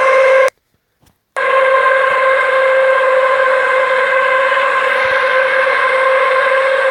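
A loud, steady horn-like drone held on one pitch with strong overtones, one of the unexplained 'trumpet sounds in the sky' that people have reported. It drops out completely for almost a second just after the start, then resumes.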